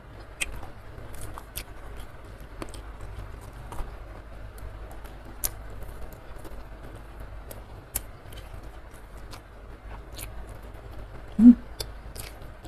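Close-miked eating sounds: chewing with scattered wet mouth clicks and smacks as food is eaten by hand, over a steady hiss of rain. A short hummed voice sound stands out near the end.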